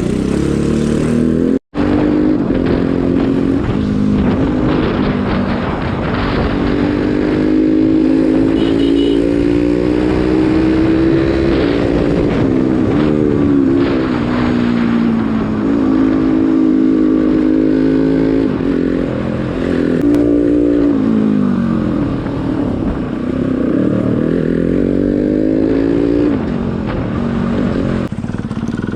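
Motorcycle engine running under way, its pitch climbing and dropping again several times as it accelerates and eases off. The sound cuts out for an instant about two seconds in.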